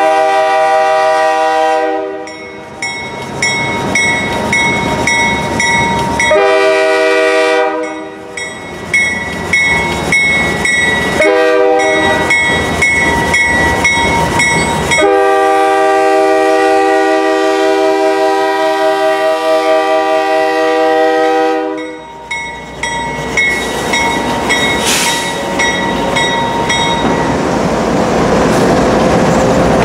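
CSX diesel freight locomotive horn sounding the grade-crossing signal: long, long, short, then a long blast of about seven seconds, while a bell dings about twice a second. After the horn, the lead units, a GE ES44DC and a CW44AC, run past with engine noise and wheel clatter.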